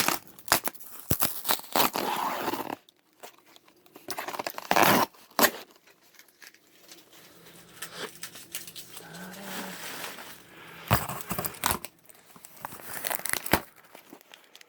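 Action-figure packaging being opened by hand: crinkling and tearing of cardboard and plastic, with sharp clicks and irregular louder bursts.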